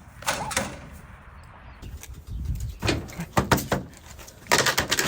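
Several sudden knocks and rattles in clusters: one about a third of a second in, a run of them between two and four seconds in, and a louder group near the end.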